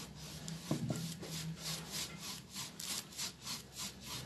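A paintbrush scrubbing metallic paint over a hard, textured paste-relief surface in quick back-and-forth dry-brush strokes, about five a second, each a short scratchy rub.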